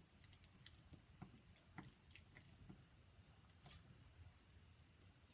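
Faint, irregular squishing and light clicks of a small tool stirring and scraping thick chalk paste in a jar; the paste is being remixed with distilled water to loosen it.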